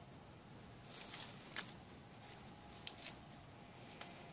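A few faint light clicks and rustles of cooked bacon strips being handled and laid onto toast.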